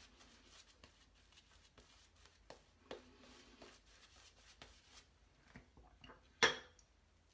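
Faint soft scratching of a black badger shaving brush working lather over the jaw and neck, then one sharp clack about six seconds in.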